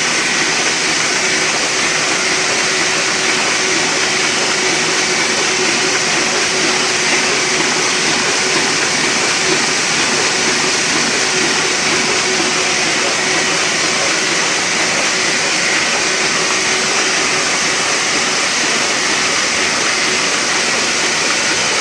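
Heidelberg MOZP offset printing press running: a loud, steady machine noise at an even level, with a faint constant tone underneath.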